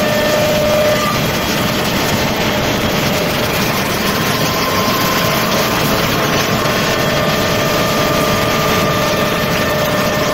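Automatic wood lathe running, its tool carriage cutting a spinning wooden rolling-pin or pestle blank: a steady, dense machine noise with faint steady whines over it.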